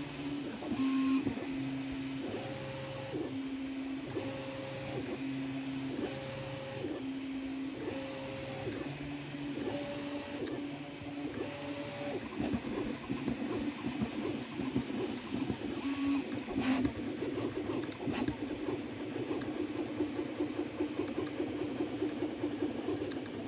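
Original Prusa Mini 3D printer printing: its stepper motors sing a tone that steps up and down between two pitches about once a second during long straight moves. About halfway through this turns into a rapid, fast-changing buzzing chatter of short moves, over a steady hiss.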